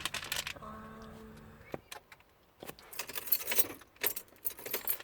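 Car keys jangling in short clusters of small metallic clicks. About half a second in, a steady electronic tone sounds for about a second.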